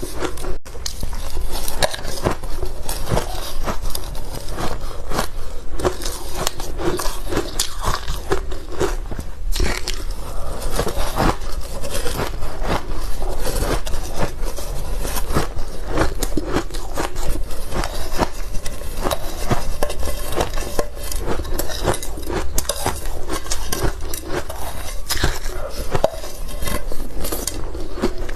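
Close-miked ice being bitten and crunched in the mouth: a dense, continuous run of crisp crunches and crackles.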